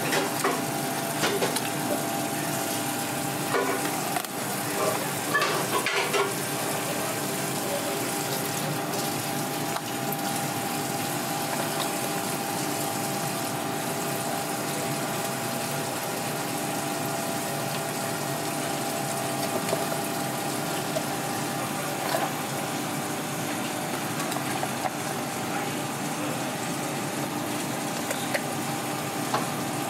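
Steady kitchen background of hiss with a constant hum, with scattered clicks and knocks of a knife on a cutting board, thickest in the first six seconds, as a large raw fish is cut up.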